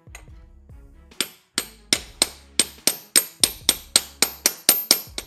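Hammer striking a socket to drive a new bearing into a belt tensioner pulley. About fifteen quick, ringing metallic taps, roughly four a second, start about a second in.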